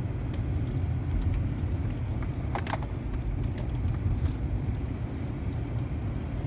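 Car running and rolling slowly, heard from inside the cabin: a steady low engine and road rumble, with a couple of brief clicks about two and a half seconds in.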